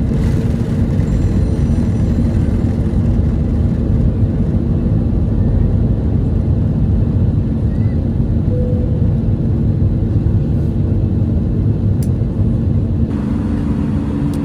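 Jet airliner cabin noise during takeoff and climb-out: the engines and rushing air make a loud, steady noise with a low hum, heard from inside the cabin by a window seat. Near the end the hum shifts slightly to a different pitch.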